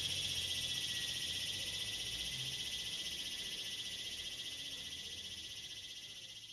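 Insect chorus: a dense, high-pitched, rapidly pulsing trill that slowly fades out toward the end.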